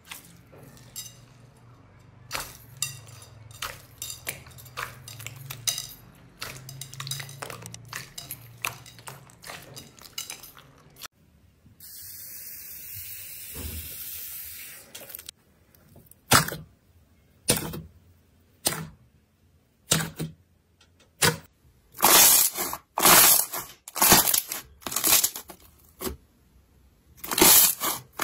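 Hands working slime. First comes a dense crackle of small clicks as fingers press into bead-filled slime in a glass bowl. About eleven seconds in, a steady hiss of a few seconds follows as a hand drags across foamy pink slime. From about sixteen seconds there are loud squishing presses of pink slime, about one a second and coming faster near the end.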